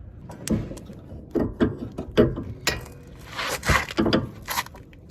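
Hand-tool work on a car's rear brake assembly: a string of irregular metal clicks and knocks, with a longer scrape about three seconds in, as steel tools and brake parts are worked and pried.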